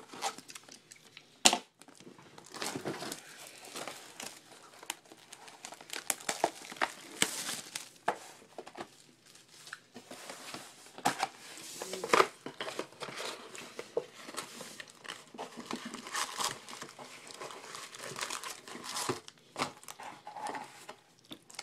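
Baseball card pack wrappers crinkling and tearing as the packs are handled and opened, with scattered sharp clicks and knocks. The loudest click comes about a second and a half in.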